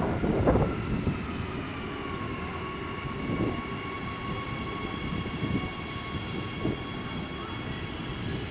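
Adelaide Metro 4000 Class electric multiple unit pulling into the platform and stopping. An electric whine falls in pitch over the first couple of seconds as it slows, then holds steady over a low rumble.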